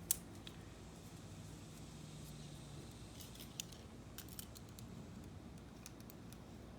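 Spline roller tool pressing spline and screen mesh into a window-screen frame's channel: a sharp click just after the start, then scattered light clicks and ticks of the tool against the frame, over a faint low hum that stops about three seconds in.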